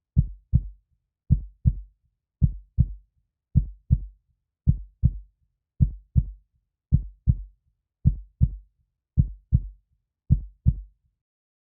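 Heartbeat sound effect: ten slow lub-dub beats, each a pair of low, dull thumps, about one beat a second, with silence between them.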